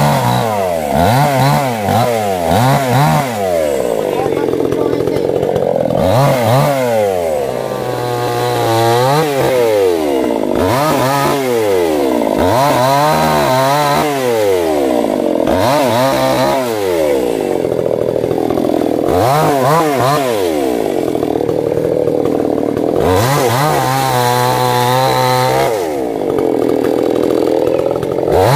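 Two-stroke petrol chainsaw cutting through tree branches, its engine revved up and dropping back every second or two, with a few longer stretches held at full speed while the chain is in the wood.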